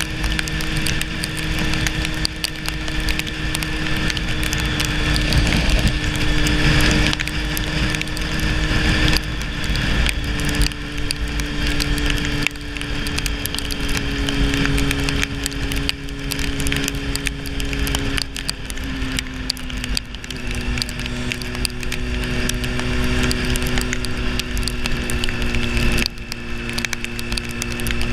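Motorcycle engine running steadily at road speed, with a constant rush of wind and road noise. The engine note drops a little in steps, about a third of the way in, again about two-thirds in, and near the end.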